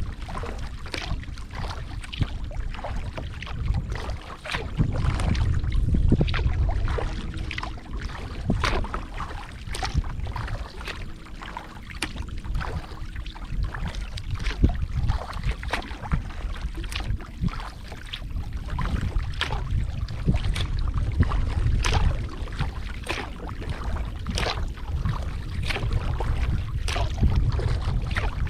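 Kayak on open water: water splashing and dripping in many sharp, irregular ticks, over a low rumble of wind on the microphone that swells and fades.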